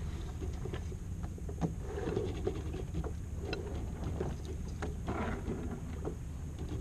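Low steady rumble of water and light wind around a small sailboat, with scattered clicks and rustles from lines and deck gear being handled in the cockpit, the rustling loudest about two and five seconds in.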